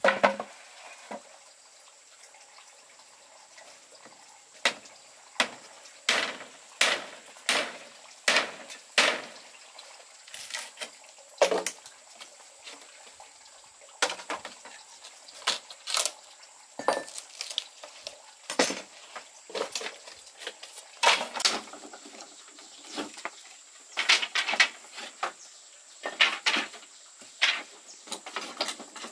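A series of sharp clinks and knocks of hard objects struck together, irregularly spaced, often a few in quick succession.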